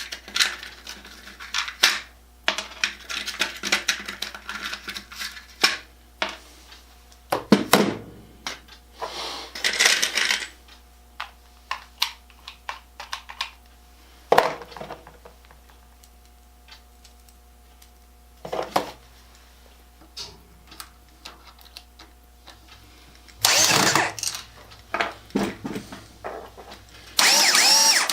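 Power drill running in several short bursts, the longest two near the end, driving screws to mount a caster on a wooden tool box base. Between the bursts there are clicks and clinks of screws and metal caster hardware being handled.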